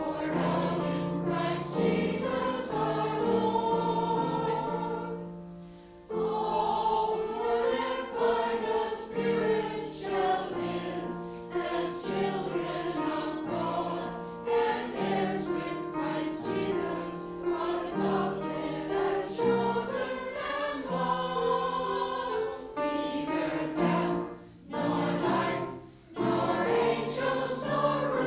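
A choir singing a hymn in held notes, with short breaks between lines about five seconds in and twice near the end.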